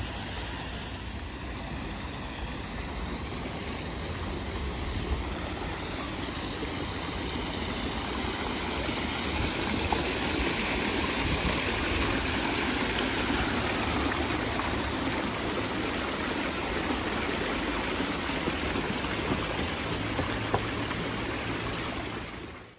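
Water rushing and splashing down a stepped stone cascade, a steady rush that grows louder for a stretch in the middle.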